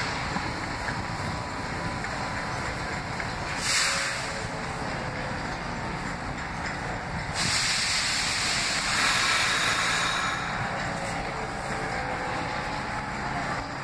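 Air brakes on a Pullman Standard R46 subway train releasing: a brief hiss about four seconds in, then a longer, louder hiss lasting about three seconds from just past halfway, over a steady rumble of the standing train.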